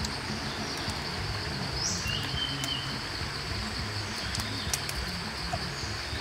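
Forest ambience: a steady high insect drone, with a short bird call about two seconds in, over a low rumble.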